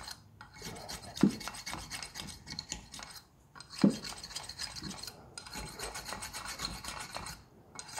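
Rusty steel head bolt being worked back and forth by hand in its threaded hole, a rough metal-on-metal rasping broken by short pauses, with a couple of low knocks, the loudest about four seconds in. The bolt is seized in the threads and does not run in freely.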